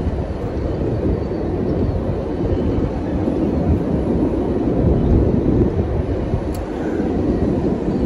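Wind buffeting the microphone: a steady, loud low rumble.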